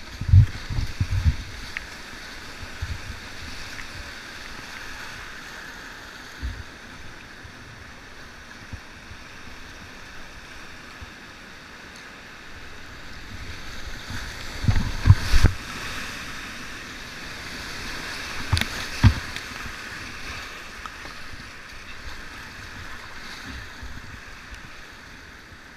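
Whitewater rushing steadily around a kayak running a steep rapid. Heavy splashes and low thumps of water hit the boat and camera about a second in, and again around fifteen and nineteen seconds in.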